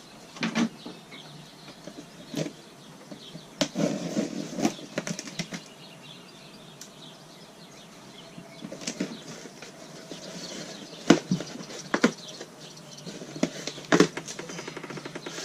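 Cardboard shipping boxes being opened and unpacked: rustling and flapping of cardboard and packing, with scattered sharp knocks and clicks, the loudest in the second half.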